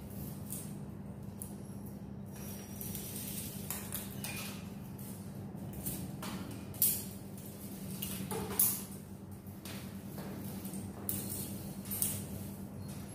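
Light clicks, taps and rustles at irregular intervals from tangled fiber-optic patch cords being handled and untangled, a little louder around the middle and near the end, over a steady low hum.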